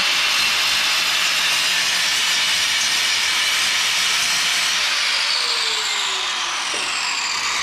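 Grinder grinding a weld off steel to clear a broken mounting tab: a loud, steady hiss of the disc on metal that eases a little over the last two seconds, with a falling whine.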